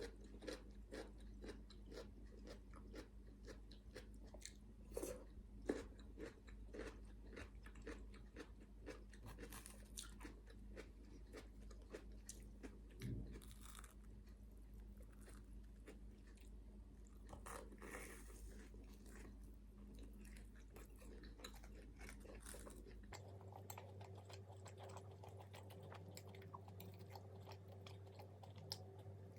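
Close-up chewing and crunching of fried food, many short crisp bites and crackles in quick succession.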